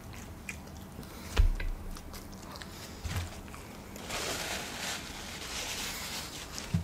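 Close-miked chewing of a bite of stuffed-crust pepperoni pizza, with small mouth clicks and a soft low thump about a second and a half in. From about four seconds in, a paper napkin rustles for roughly two seconds.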